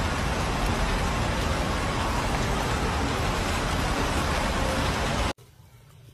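Steady, loud rushing noise that cuts off suddenly about five seconds in, leaving a much quieter background.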